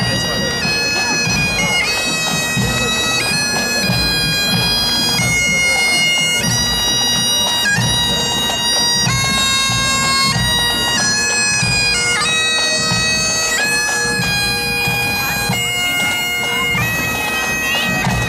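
Bagpipes playing a tune: the melody moves in held notes over a steady drone.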